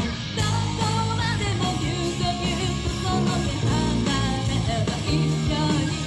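A J-rock band playing live, with a female lead singer singing over electric guitar and the rest of the band.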